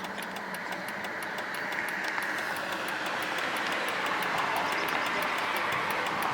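A Chrysler 300 idling, a steady running noise, over fast, even ticking at about five ticks a second. This is typical of a turn signal hyper-flashing because of a burnt-out bulb.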